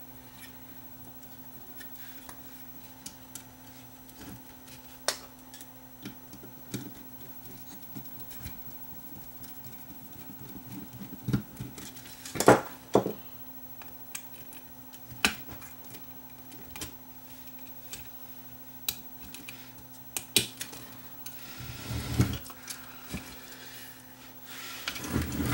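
Scattered clicks and light knocks of hands handling a cassette deck's circuit boards and chassis parts during reassembly, the loudest about halfway through, over a faint steady hum.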